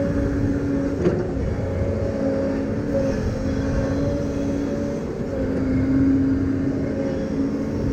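Diesel engine of a tracked earthmoving machine running steadily while grading, a pitched hum that wavers slightly in pitch over a low rumble. A short knock about a second in.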